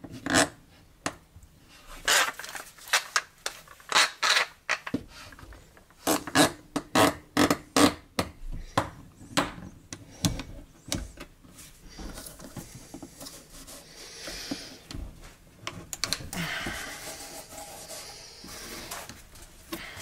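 Old Wolfcraft bar clamp being fitted and tightened: a run of irregular sharp clicks and knocks, then a softer scraping rustle through roughly the last eight seconds.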